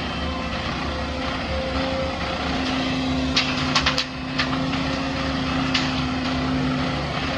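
Heavy diesel machinery engine running steadily, with a cluster of sharp knocks a little before the middle and one more later on.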